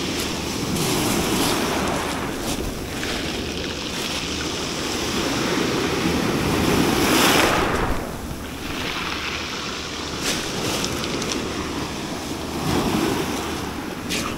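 Sea waves breaking and washing over a pebble shore, one surge loudest about seven seconds in.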